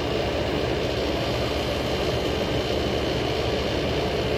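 Old General Electric Carry-Cool window air conditioner running, a steady drone with a low hum and no change in level.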